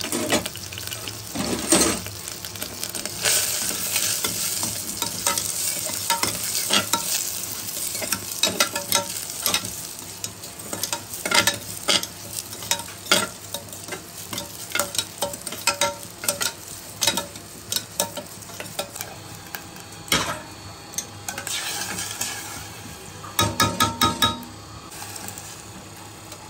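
Metal spoon stirring moong dal frying in oil in a stainless steel pressure cooker: a light sizzle with frequent irregular clicks and scrapes of the spoon against the steel pot.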